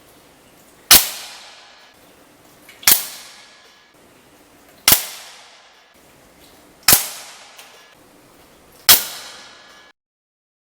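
Hatsan AT44 .177 PCP air rifle firing JSB Exact Heavy pellets: five sharp shots, evenly spaced about two seconds apart, each with a short ringing decay.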